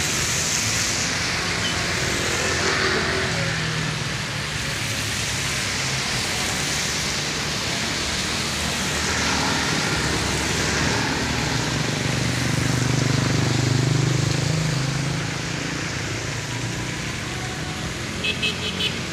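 Cars and motorcycles passing through a rain-soaked intersection: tyres hissing on the wet asphalt over a steady low engine hum, swelling as a vehicle passes close about twelve to fifteen seconds in. Near the end comes a brief run of short high-pitched pips.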